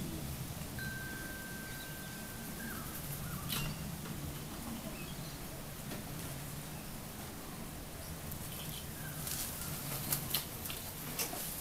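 Outdoor background with a steady low hum, a thin steady whistle-like tone lasting about two seconds near the start, and a few short sharp clicks or flaps, most of them near the end.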